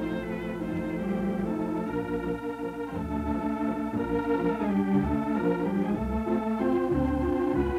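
Background score music of sustained chords that change every second or so, with a brief downward bend in pitch about halfway through.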